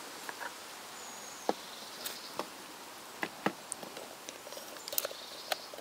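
Faint outdoor hiss with scattered small clicks and taps: handling noise from a camera and a hand-held homemade macro lens.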